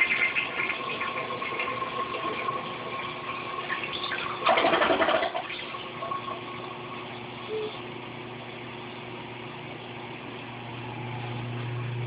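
Toilet flushing: water rushing and swirling down the bowl, with a loud gurgling surge for about a second near the middle, then a quieter steady rush of water. A low steady hum rises near the end.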